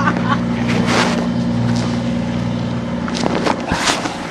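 Sailing yacht's inboard engine running steadily under way, with a hiss of wind and water and a few light knocks near the end.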